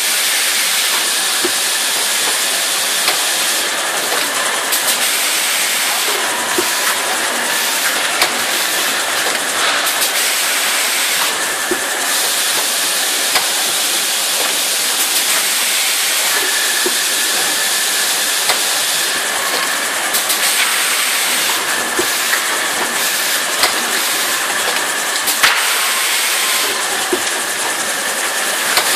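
Sugar-bag packing line running: the conveyors and bagging machinery make a steady hiss with scattered clicks and knocks, and a faint high tone that comes and goes.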